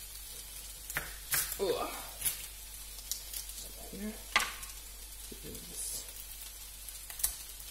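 Chopped onion sizzling in a frying pan, a steady hiss, with several sharp knocks of a kitchen knife on a plastic cutting board, the loudest about four seconds in.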